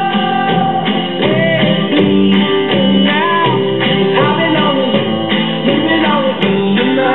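Radio-station music with guitar and a singing voice, received on the FM band and playing through the 1965 Magnavox Astro-Sonic console stereo's solid-state chassis into test speakers.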